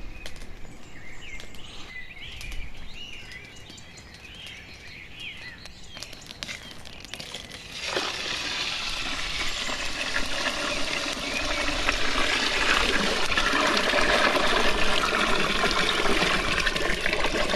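Birds chirping, then from about eight seconds in a sudden, steady rush of water pouring that grows a little louder toward the end.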